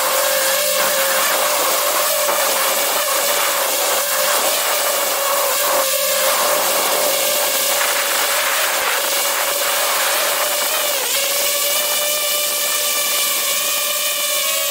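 DJI FPV drone's four motors and propellers in flight, a steady high buzzing whine over rushing air noise, heard from a camera mounted on the drone. Steady electronic music comes in about eleven seconds in.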